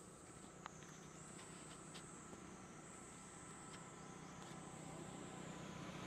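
Faint steady high-pitched insect chirring that steps slightly up and down in pitch every second or two, with a few light ticks and a low hum that grows a little louder near the end.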